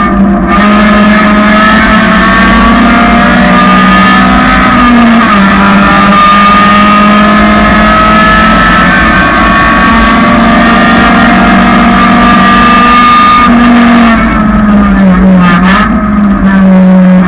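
1999 Honda Civic's four-cylinder engine running hard at high revs under load. Its note dips and recovers twice, about five seconds in and again near the end.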